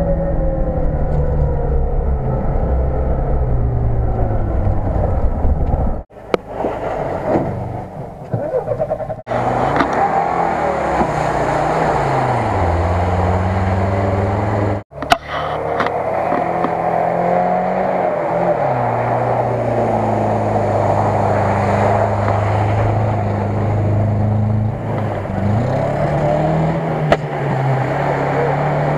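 Off-road 4x4 engines, including a UAZ-469, running hard through deep water and mud. The engine pitch drops and climbs again several times as the drivers rev against the load, and the sound breaks off abruptly a few times.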